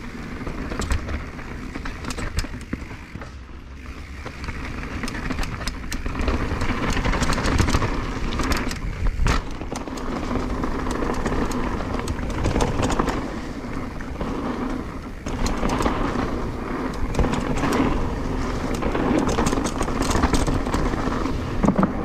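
Nukeproof Dissent mountain bike descending a dirt trail: tyres rolling and scrubbing over dirt and dry leaves, with constant clicking and rattling from the bike over rough ground. Quieter for the first few seconds, then louder.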